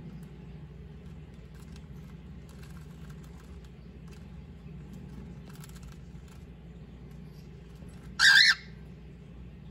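A cockatiel gives one short, harsh squawk about eight seconds in.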